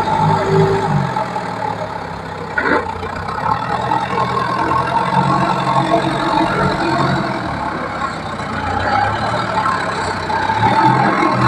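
Engine of a teak-log hauling machine running steadily, its pitch rising and falling a little as it works, with a single knock a few seconds in.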